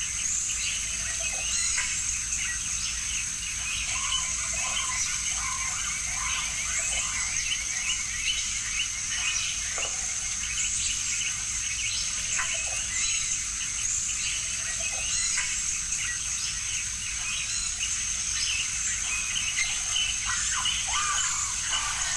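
Outdoor dusk chorus: a steady high insect trill with many short, irregular chirps over it, and the trickle of water from the elephant-head wall fountain's spouts.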